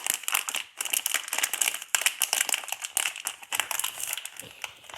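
Crinkly plastic wrapper of a collectible blind pack being squeezed and tugged while someone struggles to open it: a dense run of irregular crackles.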